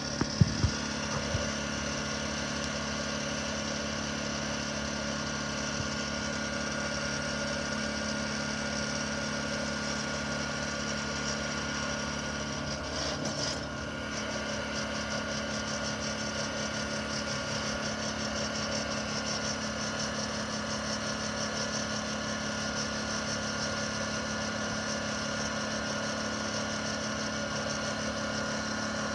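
Honda EU2000i inverter generator's small four-stroke engine running steadily, with a brief dip in level about thirteen seconds in. A few knocks near the start.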